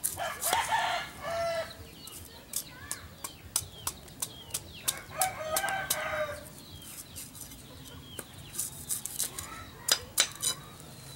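Machete strokes chopping and shaving the husk of a young coconut: a run of sharp, irregular chopping clicks. A rooster crows twice in the background, once near the start and again about five seconds in.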